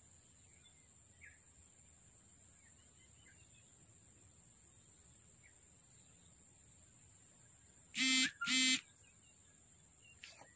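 Steady high-pitched insect drone with a few faint bird chirps. About eight seconds in, two short, loud horn-like blasts about half a second apart.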